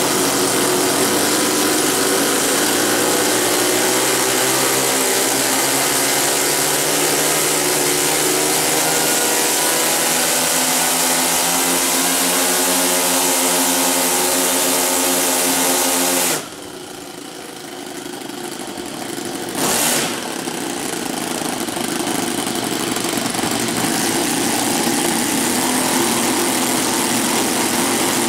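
Four Saito 62 four-stroke glow engines on a large radio-control B-17 model running hard together, their slightly different speeds making the sound beat and waver. About halfway through the sound suddenly drops to a much quieter level, then a brief burst follows a few seconds later and it builds back up to a steady full run.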